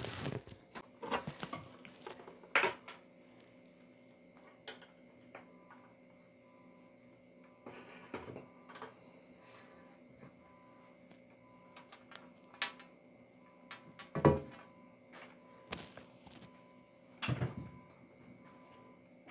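Scattered small knocks, taps and rustles of handling, the loudest a few sharp bumps near the start, in the middle and near the end, over a faint steady electrical hum.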